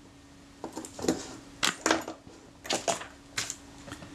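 Small screwdriver clicking and scraping on tiny screws as they are nipped up tight in a camera shutter: a handful of sharp, uneven metallic ticks.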